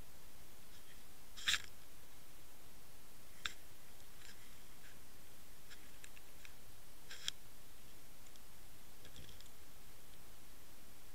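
Underwater seabed ambience: a steady hiss with scattered sharp clicks. The clicks are louder about one and a half, three and a half and seven seconds in.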